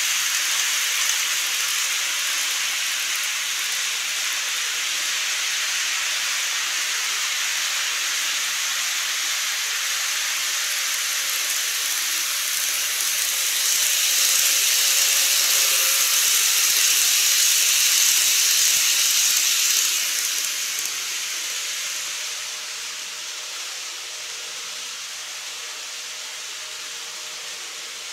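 N-scale TOMIX model of a Toei 10-300 series train running on its track: a steady rushing hiss of wheels and motor that swells as the train passes about halfway through, then fades away.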